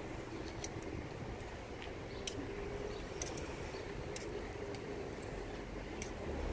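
Outdoor city-street background noise: a steady low rumble of traffic and wind, with scattered faint clicks.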